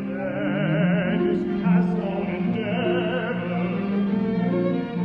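A baritone singing with vibrato over a chamber ensemble of harps and bowed strings, in a live classical performance.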